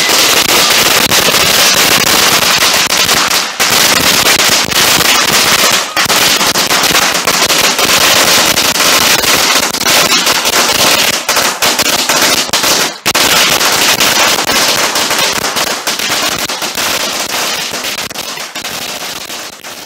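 Fireworks going off at ground level: a dense, unbroken run of rapid loud cracks and pops, with short breaks about 3.5, 6 and 13 seconds in, dying away near the end.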